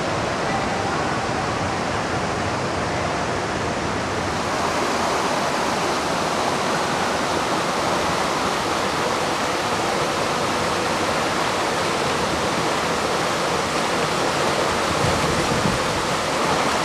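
Rushing river water running over rapids, a steady hiss of white water that gets a little louder and brighter about four seconds in.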